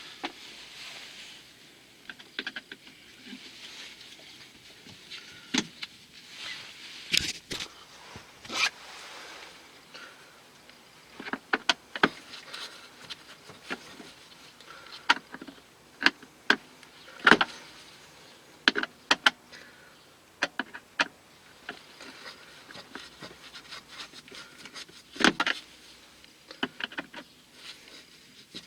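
Irregular clicks and knocks with rustling between them, from tools and parts being handled, as in hand work on a car's interior. There is no steady motor hum.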